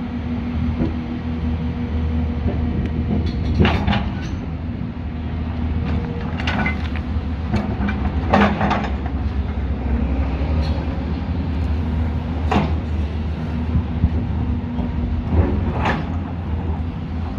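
Diesel engine of heavy construction equipment running steadily, with about five sharp knocks a few seconds apart.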